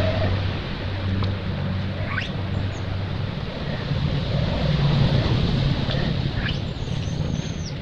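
Outdoor ambience: a steady rushing noise with a low hum underneath, and a few faint high bird chirps about two seconds in and again near the end.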